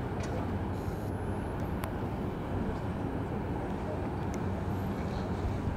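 Steady low rumble of an aircraft tug's engine towing a Boeing 777-300ER across the apron, with a single sharp click about two seconds in.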